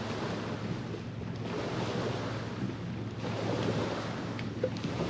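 Wind buffeting the microphone outdoors, a steady rushing noise, with a few faint clicks near the end.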